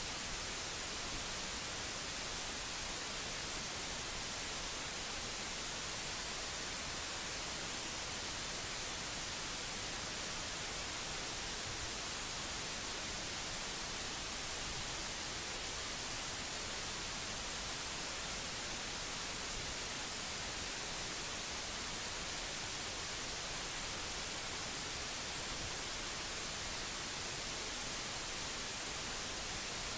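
Steady hiss, strongest in the treble, with no other sound: the noise floor of a recording microphone with nobody speaking.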